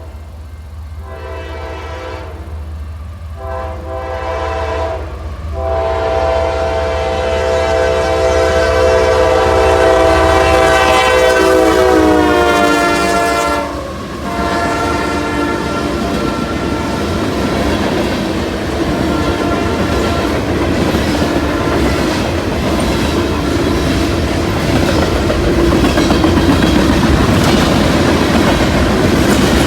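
A locomotive's multi-note air horn sounds several blasts, then one long blast whose pitch slides down near its end as the fast train passes. The horn then gives way to the steady rush and clickety-clack of the train's cars going by at speed.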